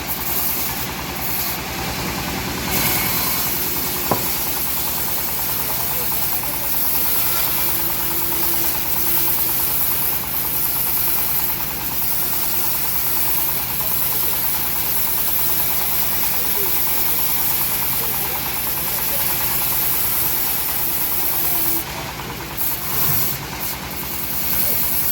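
Homemade engine-driven bandsaw running steadily: an even, low engine beat under a strong high hiss.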